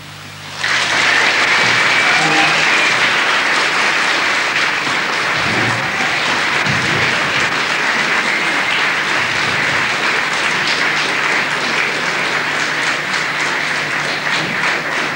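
Audience applause, swelling in about half a second in and continuing as steady, dense clapping.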